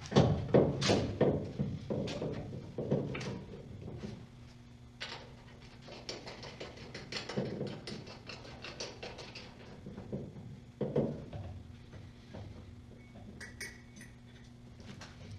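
Parts and tools being handled on a workbench: an irregular run of knocks, clanks and rattles, busiest in the first few seconds, over a steady low hum.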